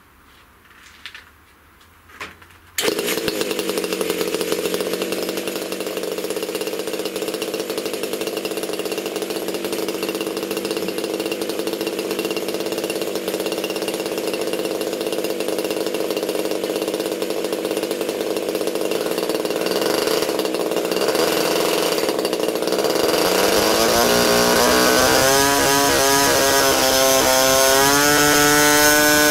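RCGF 15cc Stinger two-stroke petrol model-aircraft engine starting about three seconds in and idling steadily. From about 23 s the throttle is opened and it revs up, the pitch rising and settling into a higher, steady run at the top end as it is tuned.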